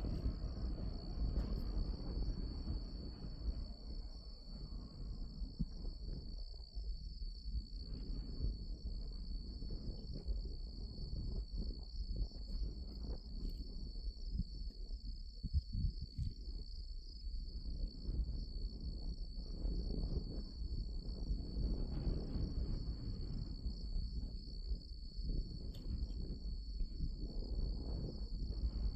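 Steady, high-pitched chorus of crickets trilling without pause, over a constant, uneven low rumble.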